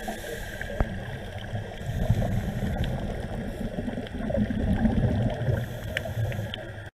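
Underwater water noise picked up through a dive camera's housing: an uneven low rumble that swells and eases, with a few faint sharp clicks. It cuts off suddenly near the end.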